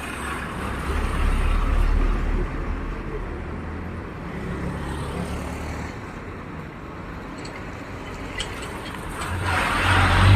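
Motor vehicle engine noise, a steady low hum that swells about two seconds in and grows louder again near the end, as with vehicles passing close by.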